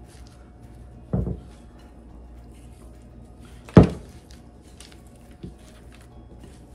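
Dull knocks of a glass mixing bowl bumping on the countertop as it is tilted: one about a second in, a louder one near the middle and a small one later, with faint rustling of parchment paper and a silicone spatula working the dough between.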